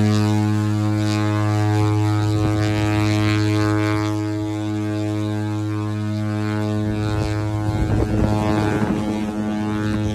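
The Mein Schiff 1 cruise ship's typhoon horn sounding one long, steady, deep blast that cuts off near the end. It is one of the three long blasts the ship gives as a farewell signal on departure.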